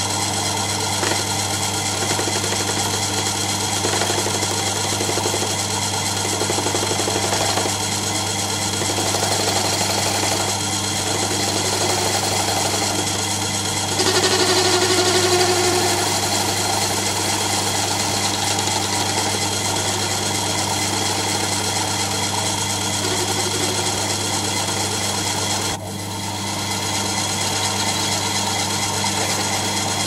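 Watchmaker's lathe running steadily while a hand graver turns away the centre of a new fusee ratchet wheel: an even motor hum under the scrape of the cutting, briefly louder about halfway through.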